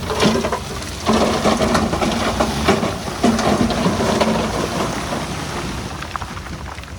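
Heavy earthmoving machinery at work: a diesel engine running under load with clanking and scraping. It gets louder about a second in and fades toward the end.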